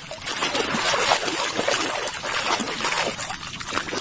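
Water splashing and trickling steadily as a muddy toy is washed.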